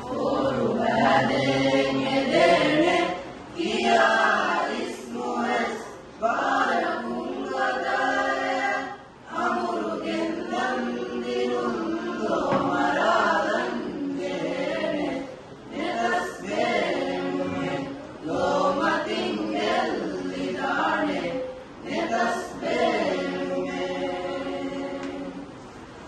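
A mixed group of girls' and boys' voices singing a madhaha, a Maldivian Islamic praise song, unaccompanied. They sing in held phrases with brief pauses between them.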